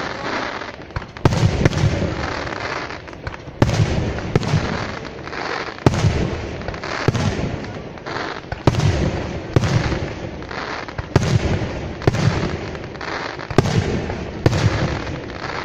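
Aerial firework shells bursting one after another, a sharp boom every second or two with dense crackling between them.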